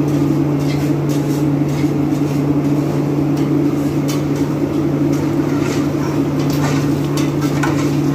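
Steady low mechanical hum with a held tone, the running burners of the kitchen's bhatti furnaces, with faint scattered knocks over it.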